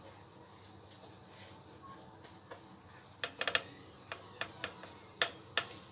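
Butter sizzling faintly in a flat pan under burger buns being toasted, with scattered short crackles and pops starting about three seconds in.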